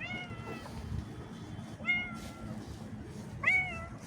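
A cat meowing three times, about every one and a half to two seconds, each meow rising quickly and then sliding slightly down, over a low background rumble.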